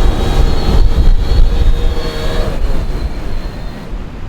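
DJI drone's propellers whining as it comes back in to land, over heavy wind buffeting the microphone. The whine fades out about three to four seconds in.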